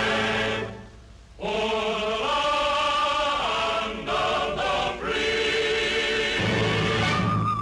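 Background music: a choir singing long held notes that shift pitch every second or so, breaking off briefly about a second in.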